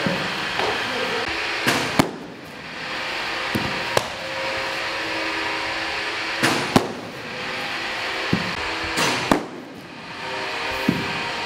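Baseballs smacking into a catcher's mitt, a sharp pop every few seconds during receiving drills.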